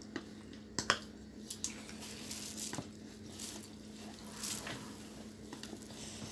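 Mealtime table sounds: chopsticks clicking and scraping against stainless steel bowls, with a few sharp clicks in the first three seconds, over a faint steady hum.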